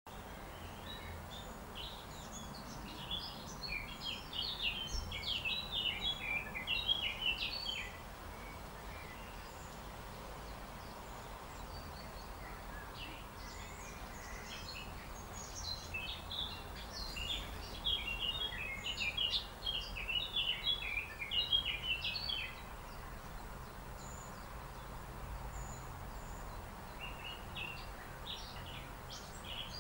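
A songbird singing in rapid, high twittering phrases: one long bout of several seconds, a pause, a second long bout, and another starting near the end, over a steady low background hum.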